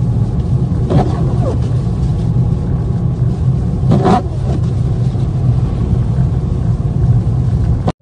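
Steady low rumble of a car driving on a snow-covered road, heard from inside the cabin. Two brief, faint higher-pitched sounds come about a second in and about four seconds in.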